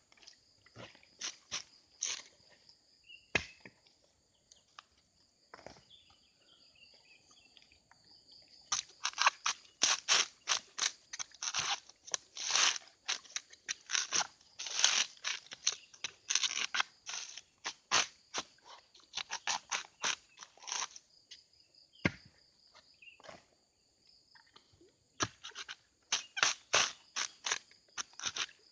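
Dry fibrous coconut husk crunching and ripping as a coconut is levered against a pointed husking stake and the husk is torn off. It comes in quick runs of sharp rips separated by pauses, sparse at first and then dense for long stretches.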